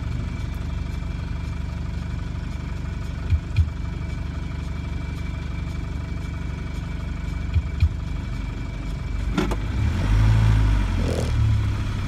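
Land Rover diesel engine idling steadily, heard from inside the cab, with a soft double knock about every four seconds. About nine seconds in there is a clack, and then the engine gets louder as the vehicle pulls away under load.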